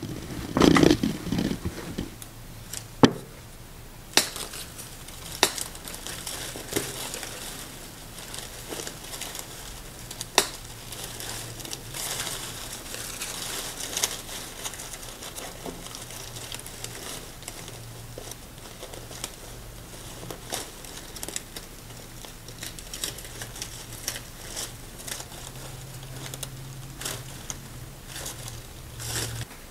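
Rustling and crinkling of an artificial flower wall's plastic leaves and fabric as hands work against it, hanging a sign by fishing line, with scattered light clicks and taps.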